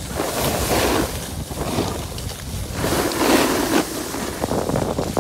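Skis sliding and scraping over groomed snow in two long swooshes, one about half a second in and another around three seconds in, with wind rushing on the microphone.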